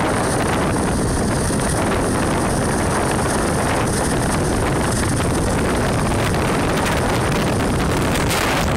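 Steady rushing road and wind noise of a car driving at speed, with wind buffeting the phone's microphone.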